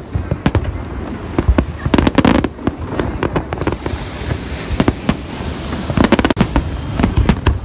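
Aerial firework shells bursting: many sharp bangs in quick, irregular succession, thinning out for a couple of seconds midway to a steady hiss before the bangs pick up again.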